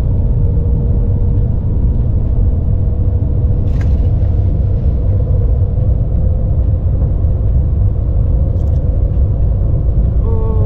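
Cabin noise of the Shanghai maglev train running at speed: a steady low rumble with a faint steady hum.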